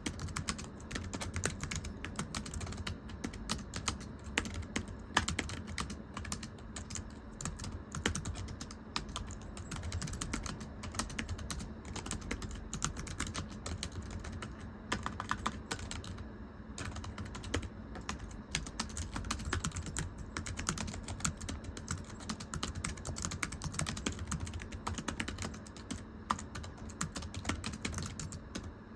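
Typing on a thin, low-profile computer keyboard: a fast, irregular stream of light, flat key clicks, with a brief lull about sixteen seconds in.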